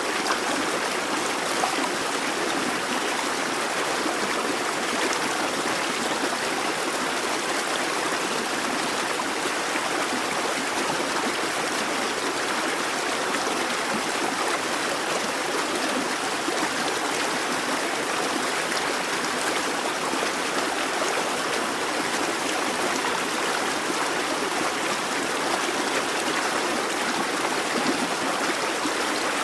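Babbling brook: shallow water running and gurgling over stones, a steady, even rush.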